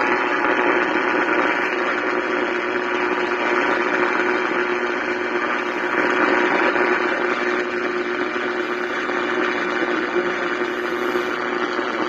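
AM radio static: a steady, loud hiss from a tabletop radio's speaker tuned to 1000 kHz AM, with a faint low steady hum underneath.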